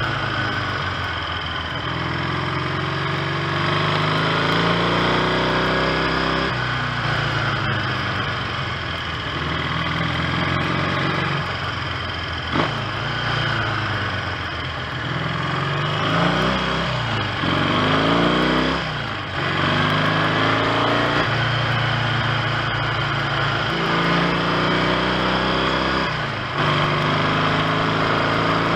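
1970 Triumph T100C's 500 cc parallel-twin engine being ridden through the gears. Its pitch climbs and drops back at each upshift, several times over, with one slowdown and pick-up about two-thirds of the way in. The bike has new points and plain clutch plates, and the engine runs without misfiring.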